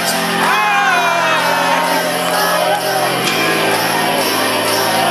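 Loud live electronic dance music over a concert sound system, with crowd voices singing and shouting along.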